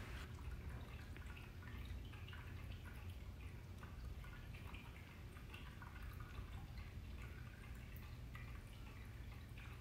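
Two cats grooming and play-biting each other: faint, irregular wet licking and nibbling clicks over a low steady hum.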